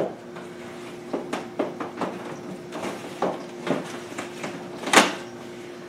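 Light plastic clicks and rattles of a window air conditioner's accordion side panel being fitted and slid onto its side track, with a sharper knock about five seconds in.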